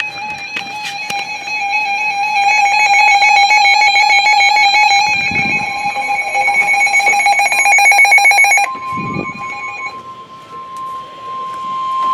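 A steady electronic alarm tone, warbling rapidly through its middle stretch. About nine seconds in it gives way to the single steady 1050 Hz NOAA Weather Radio warning alarm tone that precedes a broadcast warning.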